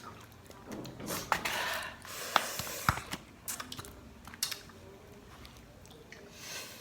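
Close-up eating sounds: crunching and chewing with several sharp clicks and a few noisy bursts, busiest in the first three seconds and then sparse.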